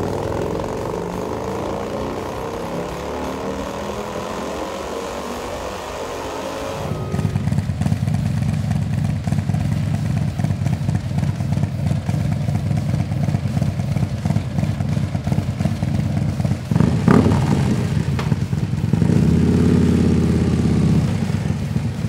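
Harley-Davidson Electra Glide Revival's 135-cubic-inch V-twin engine under load on a dyno, its pitch rising steadily as it pulls up through the revs. About seven seconds in it changes to the engine idling with a deep, pulsing beat through the exhaust, blipped once and then revved harder near the end.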